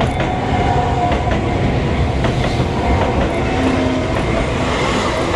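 Enoshima Electric Railway (Enoden) commuter train passing close by at a level crossing, its wheels clacking over the rail joints.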